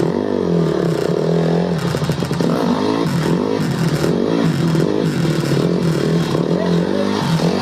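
Honda CRF150R dirt bike's four-stroke single-cylinder engine revving up and down over and over as it is ridden.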